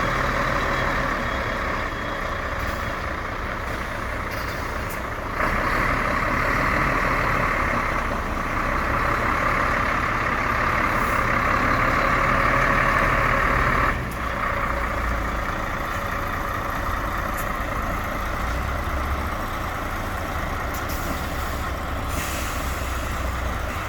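Putzmeister BSF52-16H truck-mounted concrete pump running: a steady low engine hum under a loud hiss. The hiss gets louder about five seconds in and drops back abruptly about fourteen seconds in.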